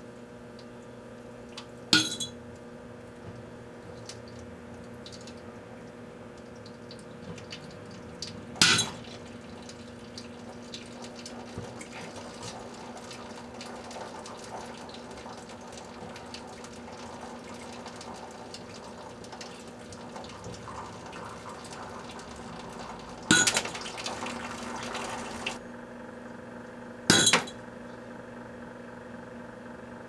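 Microwave oven running with a steady hum while watch batteries inside it explode: four sharp bangs about 2, 9, 23 and 27 seconds in, the third followed by about two seconds of hissing, with faint crackling between them.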